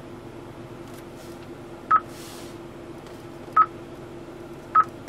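Three short, high touchscreen confirmation beeps from the 2013 Hyundai Veloster's navigation head unit as menu buttons are tapped. The first comes about two seconds in and the others follow a second or so apart, over a steady low hum.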